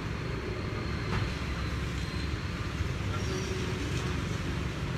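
Steady low rumble of vehicle noise, with a faint click about a second in.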